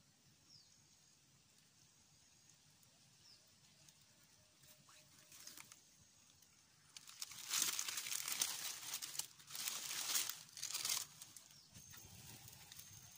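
Dry banana leaves rustling and crackling loudly in three bursts through the middle stretch, after a quiet start with a few faint, high bird chirps.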